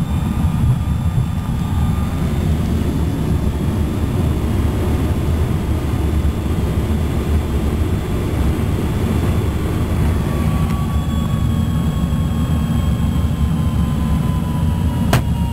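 Airflow rushing over the canopy of a DG1000 glider in flight, heard inside the cockpit as a steady low rumble. A faint tone slowly drops in pitch in the second half, and there is a single click near the end.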